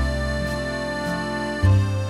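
Background music: a keyboard-led instrumental with sustained notes, a new bass note coming in near the end.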